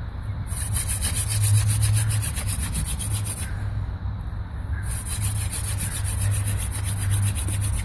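Hand-drill friction fire: a mullein spindle twirled between the palms grinds against a willow hearth board with a fast, rhythmic wooden rubbing. It comes in two bouts with a break of about a second and a half between them, and the friction is raising smoke from the hearth.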